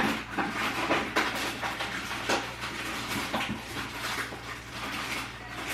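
A series of light clicks, knocks and clatters from household objects being handled, over a steady low hum.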